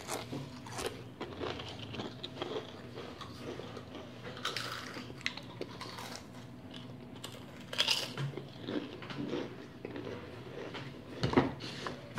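Pringles potato crisps being bitten and chewed, a run of crisp crunches close to the microphone, with louder bites about 8 and 11 seconds in.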